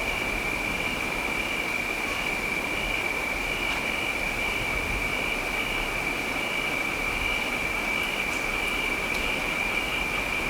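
Steady rain, with a continuous high-pitched drone of night insects on top that pulses lightly and regularly.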